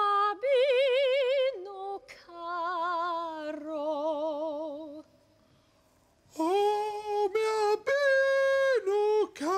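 A female opera singer singing long held notes with a wide vibrato, several notes in a row. After a short pause about five seconds in, steadier held notes follow with little vibrato.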